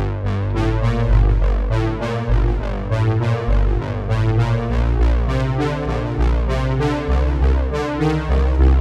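Background music: a synthesizer and keyboard tune over a moving bass line and a steady beat.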